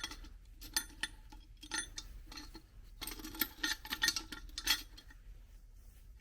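Metal parts of a disassembled rear differential clinking and rattling as they are handled: short clinks about a second in and near two seconds, then a busier run of rattling from about three to five seconds.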